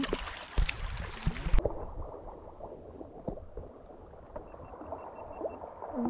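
Water gurgling and sloshing at the bank, with scattered small knocks and low handling thumps in the first second and a half. About a second and a half in, the sound suddenly turns duller.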